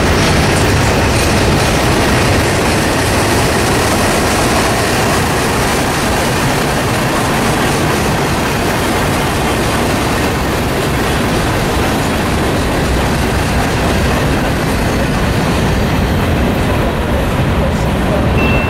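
Freight cars of a long mixed freight train rolling past close by: a loud, steady noise of steel wheels on rail.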